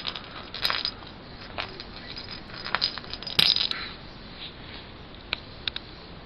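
Light clicks and clatters of small toy balls being knocked about and dropping on a hard surface, with a louder clatter about 3.4 seconds in.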